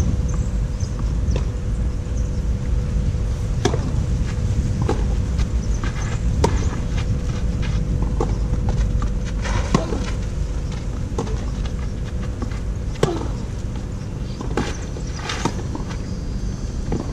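Tennis rally on a clay court: a racket strikes the ball about every second and a half, the shots alternating louder and fainter as the two players trade them, over a steady low rumble.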